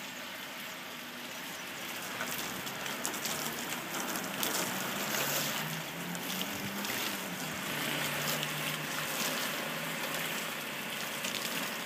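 Low-pressure water stream from a spray wand splashing steadily against painted wooden siding, shutters and window glass while rinsing off soft-wash cleaner: a steady rushing hiss.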